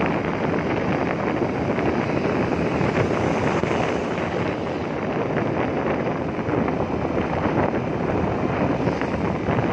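Wind buffeting the microphone of a camera on a moving open vehicle, a steady rushing noise with vehicle and road noise mixed in.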